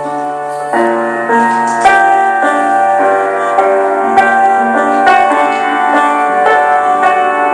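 Instrumental music: held keyboard chords changing every second or so over a sustained bass note, with a few sharp percussive hits.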